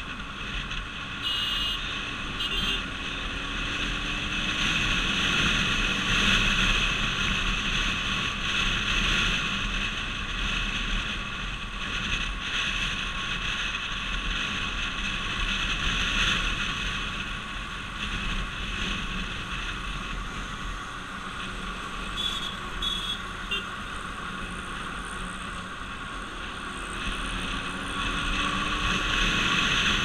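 Motorcycle riding in traffic: the engine running under a steady rush of wind over the microphone, its pitch rising a few times as the bike speeds up.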